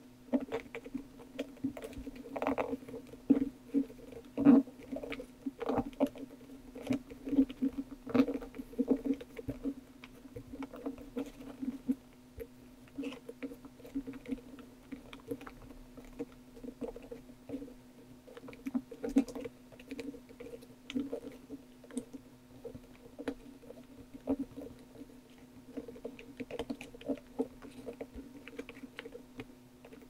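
Round wood-grain tiles of a hand-made hexagonal sliding puzzle pushed and slid around by fingers in their cardboard frame: irregular light clicks and scrapes, busiest in the first dozen seconds, over a low steady hum.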